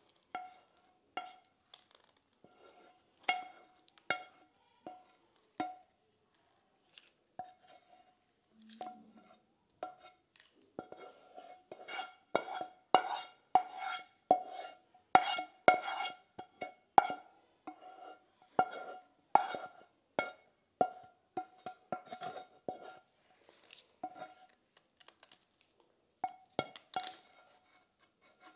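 Wooden spatula scraping and knocking against a non-stick frying pan as creamy pasta is tipped out, each knock setting the pan ringing at the same pitch. The knocks come irregularly, a few at a time at first, thickest and loudest in the middle.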